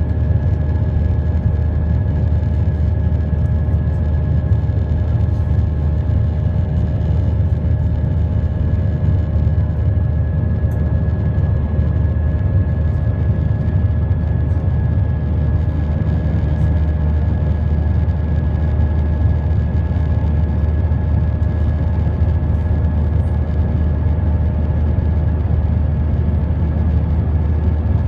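Steady jet engine drone and air noise heard inside an airliner cabin, with a deep rumble and a constant high whine.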